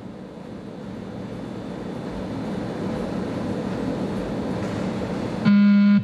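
A steady hiss that slowly grows louder, then, near the end, a loud electronic beep from the 20 m shuttle run (beep test) recording: the signal to reach the line, here the first of the beeps marking the move to the next stage.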